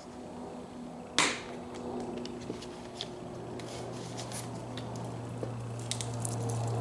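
A squeeze bottle of charcoal lighter fluid being handled over a kettle grill. There is one sharp snap about a second in, then a low steady hum that slowly grows louder, with a few light clicks near the end as fluid starts squirting onto the charcoal.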